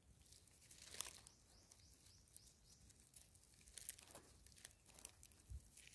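Faint scratching and crumbling of dry soil as a gloved hand digs and scrapes at it, with a few soft ticks about a second in and again near the end.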